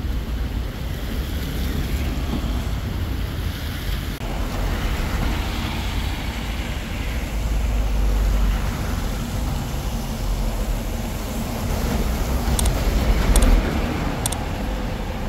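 Road traffic on a rain-soaked street: cars passing with their tyres hissing on the wet road over a steady low rumble.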